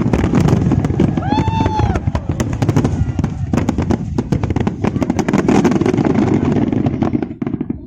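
Fireworks display: a dense, rapid run of bangs and crackling, with a brief whistle about a second and a half in, thinning out just at the end.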